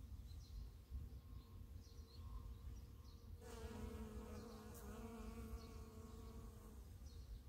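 Honeybee buzzing in flight close to the microphone: a steady, low-pitched hum that starts about three and a half seconds in and lasts about three seconds, over a faint low rumble.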